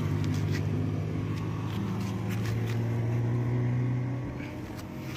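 Yamaha Mio i 125 scooter's single-cylinder engine running at idle, a steady low hum that drops away about four seconds in, with a few light clicks over it.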